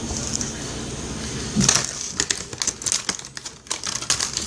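Crinkling and crackling of a seaweed snack's plastic packaging being handled, with a run of quick irregular crackles starting about a second and a half in.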